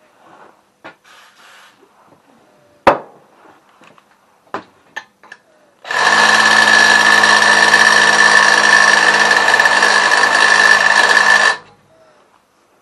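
Electric drill running steadily for about five and a half seconds and then stopping, with a steady whine, cutting through weld metal in the oil pump cover to clear out the weld blob. Before it, light handling clicks and one sharp knock.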